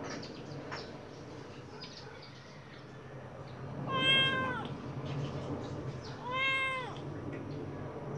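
White Khao Manee kitten meowing twice: two short meows about half a second long, roughly two seconds apart, the first about four seconds in, each dropping in pitch at the end.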